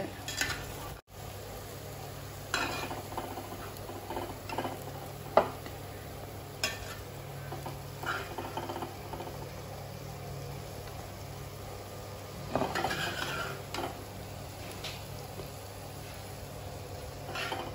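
Steel spoon scraping and clinking against a cooking pot and a ceramic plate as thick duck roast is scooped out and served, in scattered strokes with a sharp clink about five seconds in and a run of scraping near the end. A steady low hum lies underneath.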